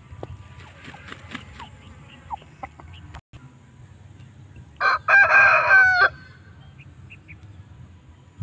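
Shamo-Aseel cross rooster crowing once, a short crow of a little over a second about five seconds in.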